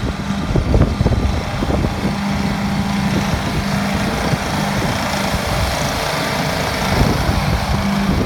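Ditch Witch SK1550 compact skid steer running steadily with a constant engine hum, and a series of sharp knocks and cracks in the first couple of seconds and again about seven seconds in.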